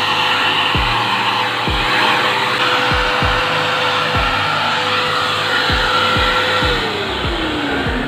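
AmazonBasics wet-and-dry vacuum cleaner running, its crevice nozzle sucking along a window's sliding track: a steady motor whine that drops in pitch near the end as the motor winds down. Background music with a steady beat plays under it.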